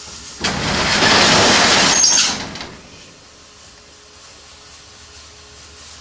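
Corrugated metal roll-up door rattling as it is rolled open, loud for about two seconds, with a brief high squeal near the end.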